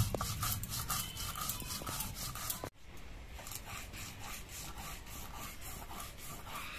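Stone roller (nora) grinding mustard and poppy seeds with green chillies on a textured stone slab (shil): a rhythmic rubbing scrape of about four strokes a second. It drops suddenly to a quieter level about two and a half seconds in, and the strokes go on.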